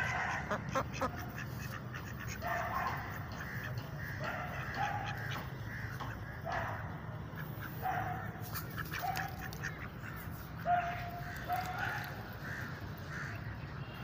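Mallard-type ducks quacking, short calls about once a second, with a few sharp clicks near the start.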